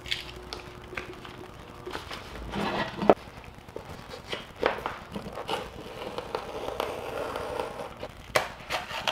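Smoke-tint vinyl film being unrolled, handled and cut with a blade: irregular rustling and crinkling of the plastic sheet, with a few sharp clicks.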